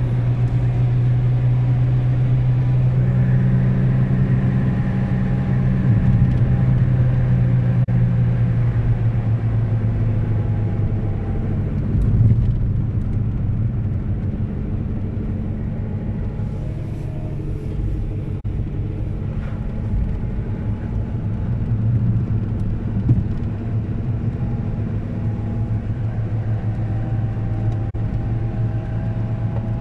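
Volkswagen Polo driving, heard from inside the cabin: a steady engine drone with tyre and road noise, its pitch shifting a little as the speed changes. Two short knocks come about twelve and twenty-three seconds in.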